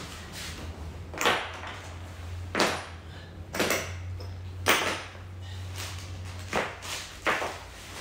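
Brass plumbing fittings being handled and set down one by one on a ceramic tile floor: about six sharp knocks about a second apart, over a steady low hum.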